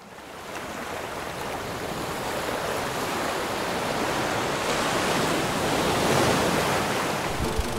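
Sea waves washing onto a stony beach: a steady rush of surf that fades in from silence and slowly swells.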